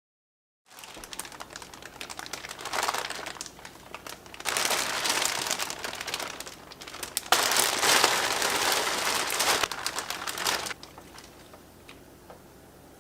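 Crinkling and crackling, as of something being handled and crumpled, coming in three louder spells and stopping a couple of seconds before the end.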